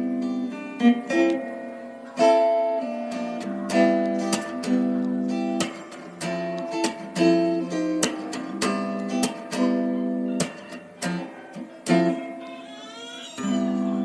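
Acoustic guitar music: chords strummed, with plucked notes in between.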